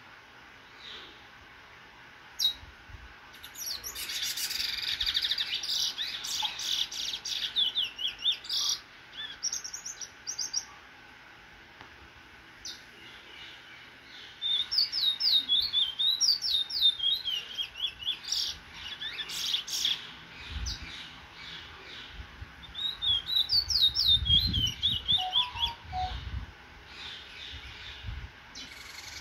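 Trinidad bullfinch (chestnut-bellied seed finch) singing in three long bursts of rapid, sliding whistled notes, with pauses between them.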